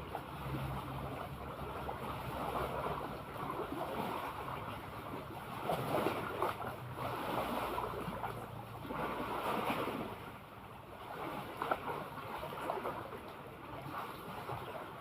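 Sea water washing and splashing in uneven surges, with wind on the microphone and a faint low hum in the first few seconds.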